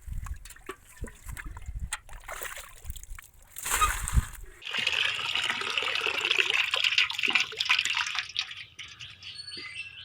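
Shallow water splashing and sloshing with scattered knocks, then, after a sudden change, a steady rush of water for several seconds, followed by birds chirping near the end.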